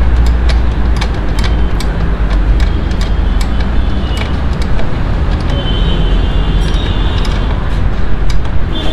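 Steady low rumble of motor vehicles, with many sharp clicks and knocks over it.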